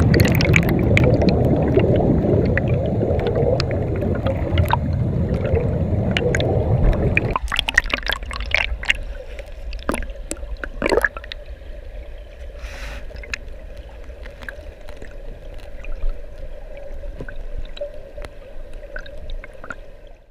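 Turbulent brook water and bubbles churning around a GoPro held underwater, heard through its waterproof housing: loud and dense until an abrupt change about seven seconds in. After that it is quieter, with scattered clicks and knocks against the housing and a faint steady hum.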